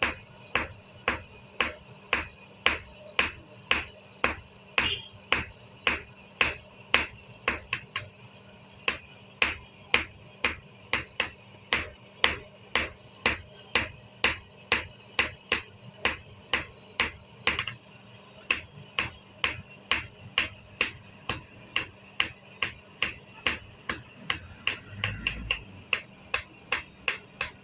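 Blacksmith's hammer striking metal on an anvil in a steady rhythm, about two and a half blows a second, each blow with a short metallic ring.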